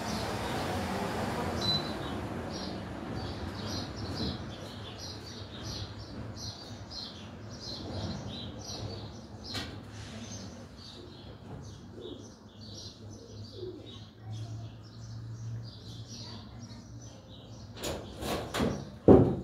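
Small birds chirping over and over in short high notes. Near the end come a few loud, sharp clacks.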